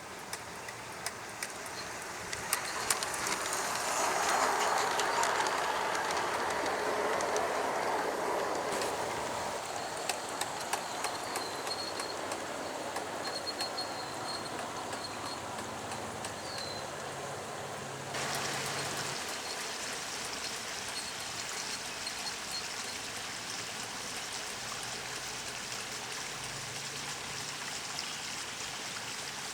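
G-scale garden-railway model train running past, its wheels rumbling with many small clicks; it grows louder about two seconds in, peaks a few seconds later, then fades. From just past the middle, a steady rushing hiss takes over.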